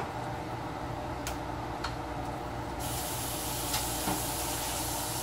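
A steady hiss of running water starts about three seconds in, like a kitchen tap turned on, after a faint click and a small tick.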